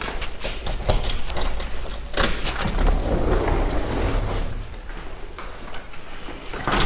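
Footsteps on a concrete floor with scattered clicks and knocks, over a low steady rumble.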